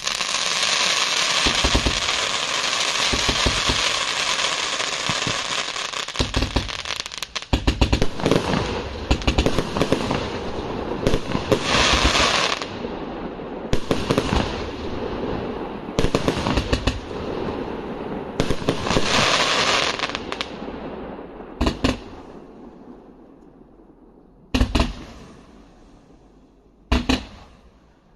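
A 208-shot, 1.2-inch fireworks cake firing in a fan pattern with whistling shells: rapid launch bangs over loud, continuous whistles that come in surges. After about twenty seconds the barrage dies away, leaving a few single shots near the end.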